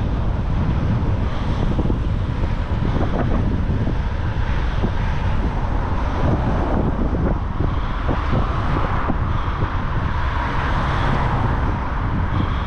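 A person breathing heavily close into the microphone, the breath blowing on it as a continuous rushing noise that swells a little with each breath.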